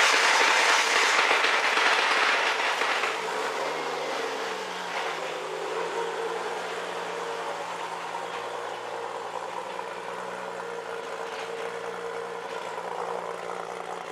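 Single-turbo 2JZ-GTE straight-six in a Toyota Mark II JZX90, running just after a cold start. It is loud at a high fast idle for the first few seconds, its pitch bends briefly about four seconds in, and it then settles into a steady, quieter idle.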